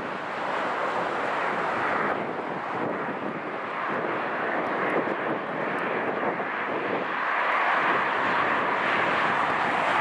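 Highway traffic roar, trucks passing with steady tyre and engine noise that swells a little near the end.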